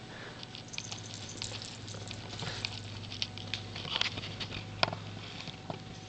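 Light, irregular scratching and tapping clicks on a fabric cat tree, with one sharper click a little past the middle, over a low steady hum.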